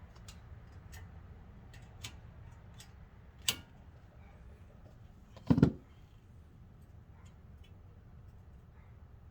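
Scattered light clicks and clinks of hand tools and metal brake parts during a front brake pad job, with a sharper click about three and a half seconds in and a heavier knock about two seconds later.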